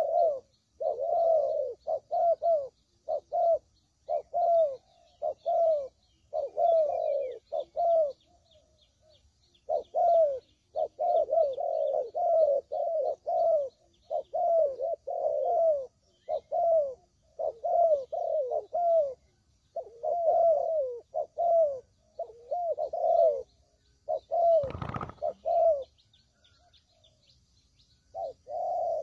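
Spotted dove (tekukur) cooing over and over in short repeated phrases, with a longer pause about 8 s in and again near the end. Faint high chirping of small birds sits behind it, and a single thump is heard about 25 s in.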